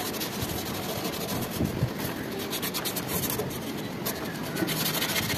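Irregular scraping and rubbing as hands work at the copper pipes and service valves of a split air conditioner's outdoor compressor, over a steady background noise.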